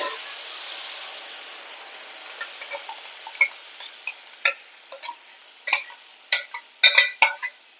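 Ground mustard-seed and garlic spice paste hitting hot mustard oil in a kadhai and sizzling hard at first, the sizzle slowly dying down. From a few seconds in, a metal utensil scrapes and taps against the steel grinder jar, and the clinks come quicker near the end.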